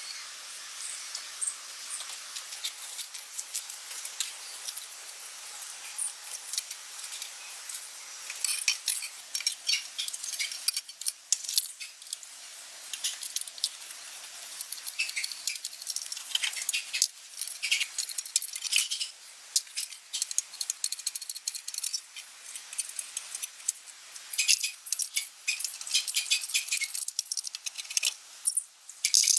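Hand work on metal parts: a long, irregular run of sharp clicks, clinks and scraping, busier in stretches and with no engine running.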